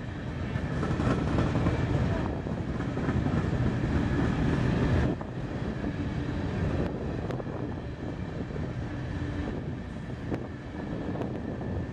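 Freight train's open-top gondola cars rolling past on steel rails, a steady sound of wheels on track that is louder for the first few seconds and drops suddenly about five seconds in.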